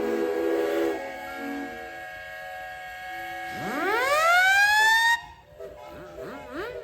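Steam engine whistles blowing together in several steady pitches, dropping away after about a second. Then a whistle sweeps up in pitch from low to high, holds for about a second and cuts off suddenly, followed near the end by short upward swoops like a siren.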